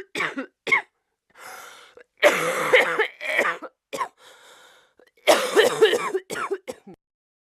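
A woman coughing in repeated fits: a few single coughs, then two long bouts of several coughs each, with breaths drawn in between.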